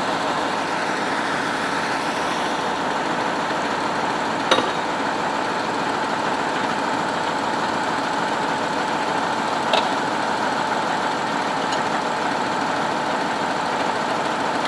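Tatra 815 fire engine's air-cooled diesel idling steadily, with two short, sharp metallic clicks about four and ten seconds in.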